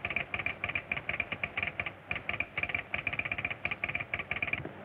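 Morse code coming over a telephone receiver: a rapid, uneven run of short high beeps spelling out a message, which stops shortly before the end.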